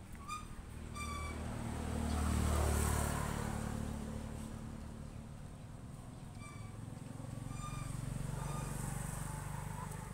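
Motorbikes passing along a road, engine hum swelling and fading twice, loudest about two to three seconds in and again near the end. A few short high squeaks are scattered over it.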